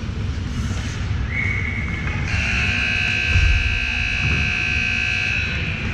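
Ice rink scoreboard buzzer sounding one long, steady, piercing blast of about three and a half seconds, starting a little over two seconds in, with a single high tone just before it. A low rumble of the rink runs underneath.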